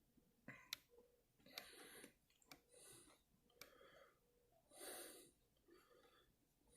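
Near silence: faint breaths close to the microphone, about four soft exhalations, with a few small clicks between them.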